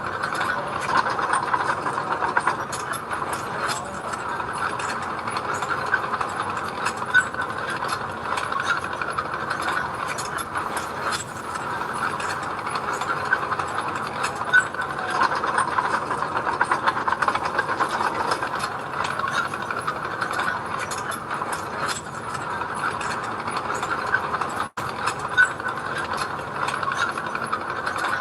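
Heavy earthmoving machinery working: a diesel engine running steadily with continual rattling and clanking from the machine. The sound drops out for an instant about three-quarters of the way through.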